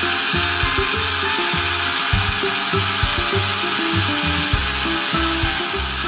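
Background music with a stepping bass line, over a steady rattling hiss of small candy balls pouring into a plastic toy blender jar.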